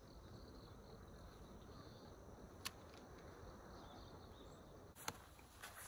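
Near silence: faint outdoor ambience, broken by two short sharp clicks, one about two and a half seconds in and another about five seconds in.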